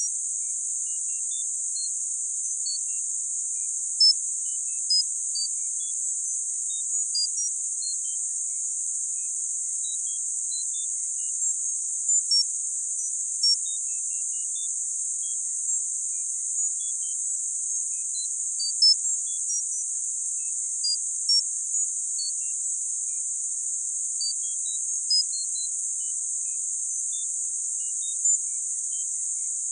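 Synthetic tinnitus-masking therapy sound: a steady, high-pitched band of hiss, with short, faint beeps of varying pitch scattered at irregular moments over it.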